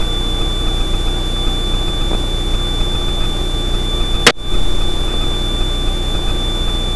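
Extra 300L's Lycoming six-cylinder engine and propeller droning steadily at climb power, heard from inside the cockpit, with a constant high thin whine over it. A brief sharp click a little over four seconds in.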